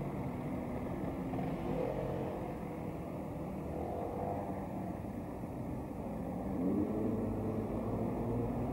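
Street traffic: a steady low rumble of motor vehicles passing, with engines accelerating past a couple of times.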